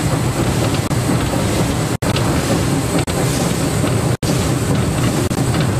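Steady loud roar inside the cab of a steam locomotive under way, with rushing air from the open cab window; the sound drops out for an instant twice.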